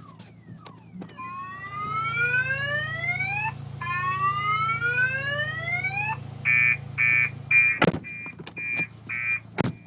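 Car alarm siren on a parked Nissan Maxima, set off by the vibration of subwoofer bass. It sounds two long rising whoops, then a string of short, rapid beeps, over a steady low drone, with two sharp thumps near the end.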